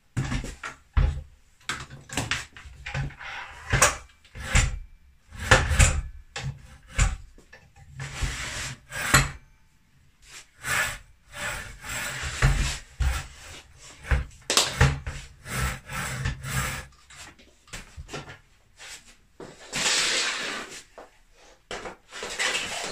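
Repeated clunks, knocks and scrapes of a sliding mitre saw being handled: its metal and plastic parts knock on a wooden workbench as it is adjusted, and then it is set down on the floor. A longer scraping noise comes near the end. The saw's motor is not running.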